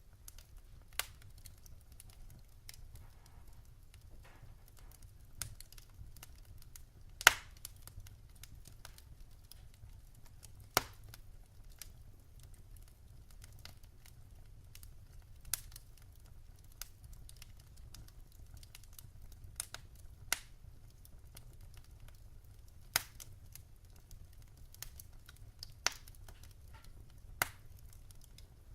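Wood fire crackling: irregular sharp pops and snaps, a few every several seconds, the loudest about seven and eleven seconds in, over a low steady rumble.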